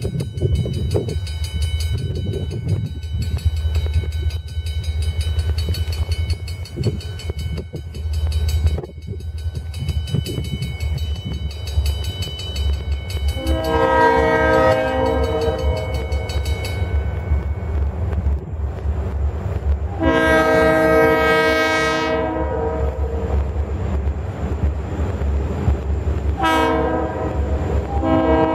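Diesel freight locomotive's air horn sounding the grade-crossing signal: two long blasts, a short one, then a long one starting near the end, as the train approaches the crossing. Under it runs a steady low rumble.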